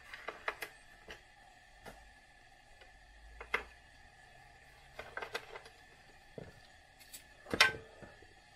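Scattered clicks and light knocks from handling a small reel-to-reel tape recorder's plastic case and a screwdriver during disassembly. The loudest knock comes about three-quarters of the way through.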